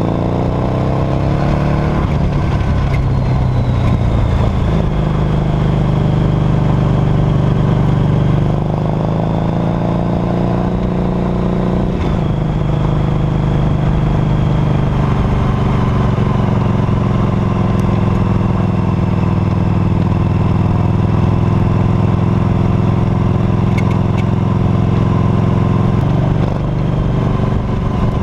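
2008 Harley-Davidson Night Rod Special's 1250 cc Revolution V-twin running under way, heard close up from the rear footpeg: it revs up near the start and again about a third of the way in, then holds a steady cruise, easing off briefly near the end.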